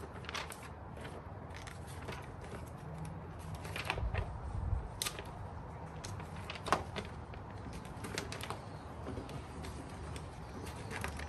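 Paper rustling and crinkling as a folded instruction manual is opened and its pages turned, in short irregular handling noises over a low steady hum. There is a soft low thump about four seconds in.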